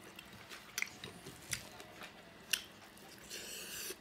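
Close-up chewing and biting of fried meat and rice, with three sharp crunches about a second apart and a brief hiss near the end.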